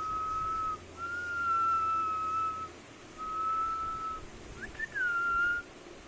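Indian ringneck parakeet whistling: a held whistle ends under a second in, then two long level whistles follow with short gaps between them. Near the end a quick upward chirp leads into a last whistle that drops slightly and holds.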